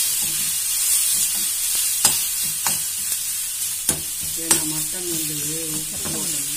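Onions and tomatoes sizzling in hot oil in a kadai as they are sautéed and stirred with a metal slotted spatula, with several sharp taps of the spatula against the pan.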